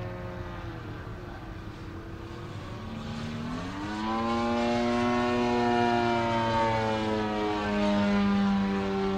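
Propeller-driven RC scale model of a Morane-Saulnier D-3801 fighter in flight, its motor and propeller droning steadily. About three and a half seconds in, the pitch climbs steeply and it gets louder. The pitch then eases slowly back down.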